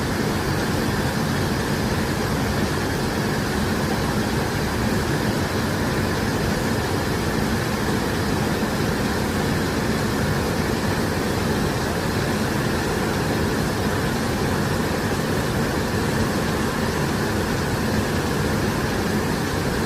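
Large waterfall's falling water making a steady rushing noise that never breaks or changes.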